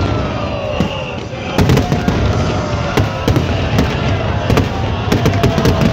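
Aerial fireworks display: many shells bursting in quick, irregular succession, sharp bangs over a continuous crackle and rumble.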